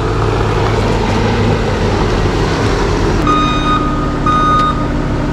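Heavy vehicle engine running steadily, with a backup alarm giving two half-second beeps about a second apart starting a little over three seconds in.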